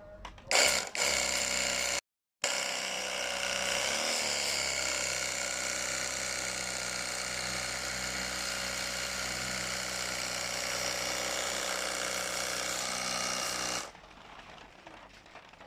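Small electric pressure washer's motor-driven pump running steadily while spraying, then cutting off suddenly near the end.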